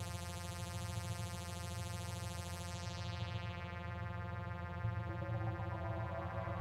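Korg NTS-1 and Arturia MicroFreak synthesizers playing an ambient drone: a held low note rich in overtones whose bright top fades away partway through, leaving a darker tone, with a higher note coming in near the end.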